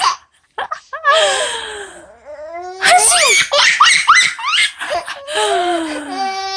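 Baby laughing hard in repeated bursts of belly laughter, with long drawn-out laughs in between, set off by its mother's sneezing.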